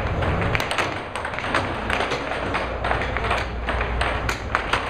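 Air hockey puck clacking against plastic mallets and the table rails in rapid, irregular sharp clicks during fast play, over the steady rush of the table's air blower.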